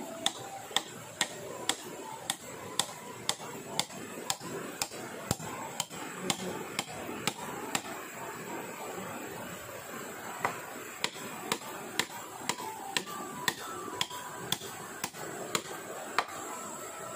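Rhythmic sharp strikes of a hand tool on wood, about two a second, with a short break about halfway through. A steady high whine runs underneath.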